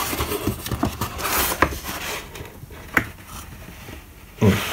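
Cardboard box and paper leaflets being handled, rustling, with a few light taps; quieter near the end.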